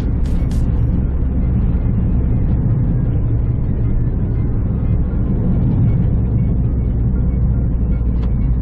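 Cabin noise of a Suzuki Swift Sport ZC31S under way on a paved road: a steady engine and tyre rumble.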